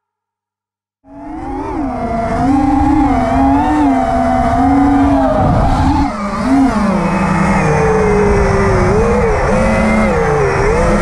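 FPV quadcopter's brushless motors and 5-inch propellers whining at close range, the pitch rising and dipping as the throttle changes, with wind rush. The sound starts abruptly about a second in.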